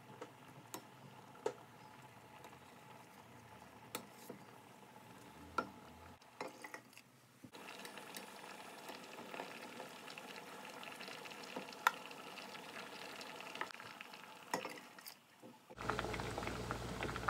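Azuki beans simmering faintly in a stainless steel pot, with scattered light clicks of a metal ladle against the pot as the scum is skimmed off.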